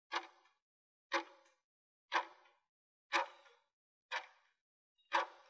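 Countdown timer sound effect: a short, sharp tick once a second, six times, each dying away quickly, with dead silence between.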